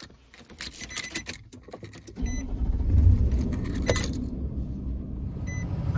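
Keys jangling and clicking at the ignition, then about two seconds in the 2008 Nissan Titan's 5.6-litre V8 starts, flares up briefly and settles into a steady idle, heard from inside the cab. The engine is being restarted after a Seafoam treatment has soaked in it. A short beep sounds as it catches and again near the end.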